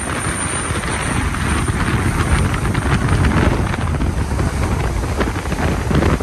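Wind buffeting the microphone on a moving cruise boat, over the rush of water churned up in the boat's wake.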